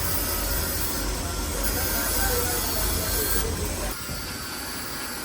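Steady industrial machinery noise with a hiss of steam from a rice mill's steam boiler plant, over a heavy low rumble that drops away about four seconds in.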